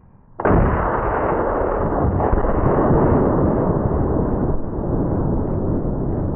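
A Tannerite charge packed in a refrigerator detonates about half a second in, a sudden blast followed by a long, steady rumble that lasts several seconds. The sound is dull, with no high end.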